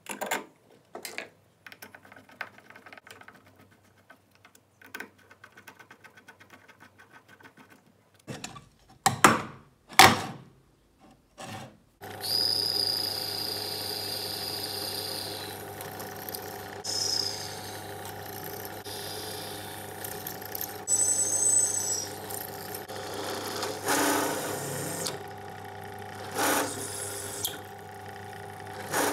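Light clicks and knocks from an aluminium plate being handled, with two louder knocks about nine and ten seconds in. About twelve seconds in a drill press starts and runs steadily, drilling and then countersinking holes in the aluminium plate, with high squeals from the bit in the metal and surges as it bites.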